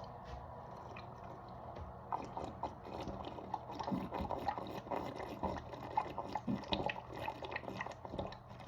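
A person gulping Diet Coke from a 2-liter bottle during a chug, a quick run of small liquid swallowing clicks starting about two seconds in.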